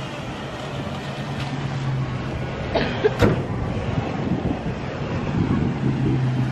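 Truck engines running with a steady low hum, and a brief cluster of sharp knocks about three seconds in.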